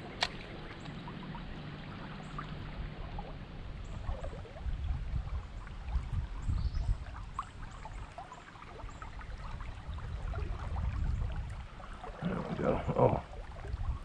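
Shallow creek water running over rocks, with a steady low rumble underneath and a sharp click just after the start.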